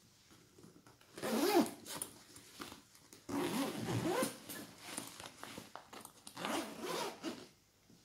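Zipper on a Victorinox Altmont laptop backpack being pulled, in three strokes a couple of seconds apart. The first, about a second in, is the loudest.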